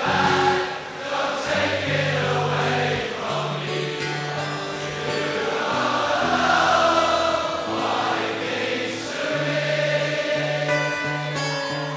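Background music: a song with layered, choir-like vocal harmonies over long held bass notes.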